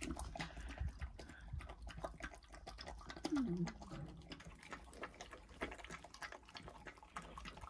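A puppy eating soaked kibble from a metal bowl: a steady run of small wet clicks, laps and crunches. A short low vocal sound about three and a half seconds in.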